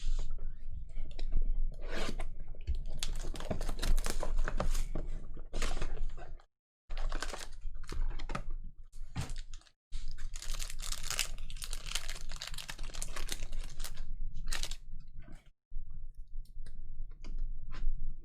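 Packs of basketball trading cards being torn open and the cards handled and shuffled by hand: a dense run of crinkling, tearing and quick card clicks that cuts out abruptly three times.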